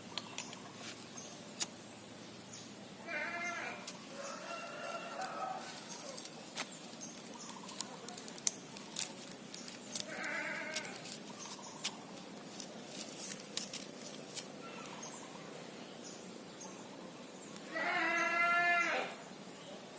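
An animal calling four times in short wavering cries, the loudest and longest near the end, with scattered sharp clicks between them.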